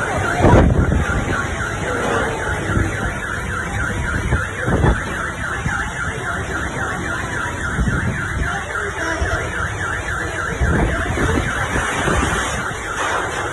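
Car alarm sounding, a fast, evenly repeating electronic tone, over strong wind rumbling and buffeting the microphone.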